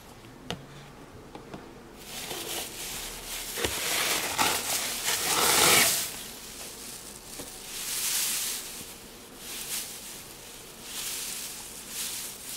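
Shredded paper filler and a cardboard gift box rustling and crinkling as they are handled, coming in swells and loudest about six seconds in. A few light clicks near the start, as plastic lipstick tubes are set down.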